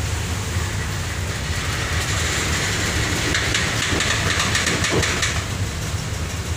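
Steady low drone of the ferry's engines on the enclosed vehicle deck. From about two seconds in there is a stretch of rapid clicking and rattling that fades away near five seconds: the chained trucks and their lashings working as the ship rolls in high waves.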